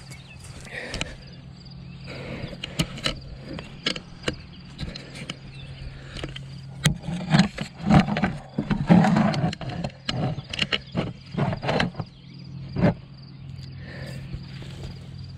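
Irregular knocks, scrapes and rustles of handling and movement on a muddy bank, busiest in the middle, over a steady low hum.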